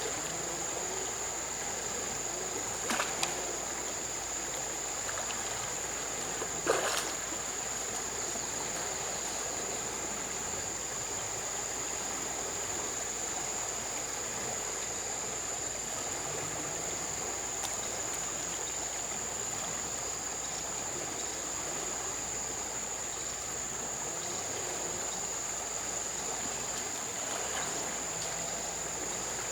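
River water trickling and splashing, with a steady high-pitched insect drone. Two short splashes stand out, about three and seven seconds in.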